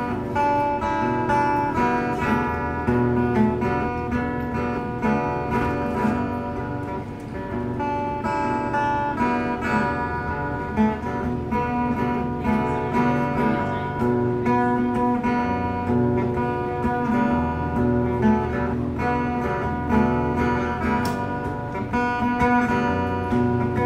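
Acoustic guitar played solo, strummed steadily through the instrumental introduction of a song, with no singing yet.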